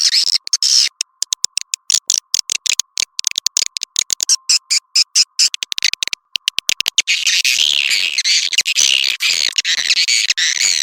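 Edible-nest swiftlet calls played as a swiftlet-house lure recording: rapid, choppy chirps and clicks broken by short gaps, merging into a dense continuous twittering chorus about seven seconds in.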